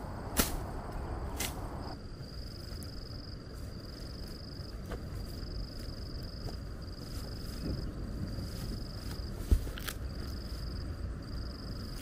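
An insect trilling at a steady high pitch in repeated phrases about a second long, over a low rushing noise. A few sharp clicks and one thump, about nine and a half seconds in, stand out above it.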